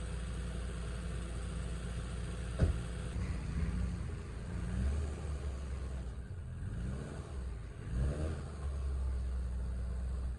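Maruti Gypsy engine running low as the 4x4 backs away, revving up briefly twice near the end. A single sharp knock, the door shutting, comes about two and a half seconds in.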